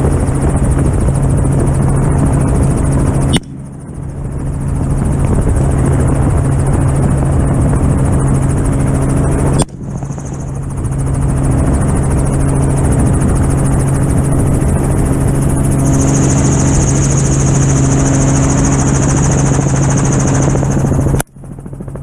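Helicopter engine and rotor noise, a steady loud drone with a strong low hum, heard from an open-door cabin. Three sharp rifle shots from a 6.5 Creedmoor rifle come about three seconds in, about ten seconds in, and a second before the end. After each shot the recorded sound drops out sharply and swells back over about a second.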